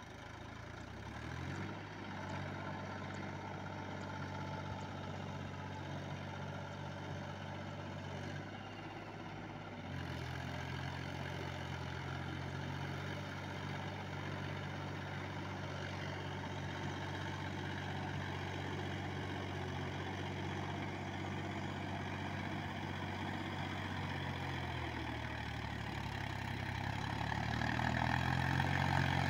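Mahindra 275 DI TU Plus tractor's three-cylinder diesel engine running steadily as it pulls cage wheels through a flooded paddy field. The engine note steps up about a third of the way in and shifts again later. It grows louder near the end as the tractor comes close.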